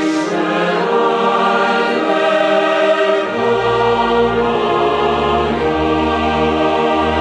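Slow background music of a choir with orchestra, holding sustained chords; a low bass part comes in about three seconds in.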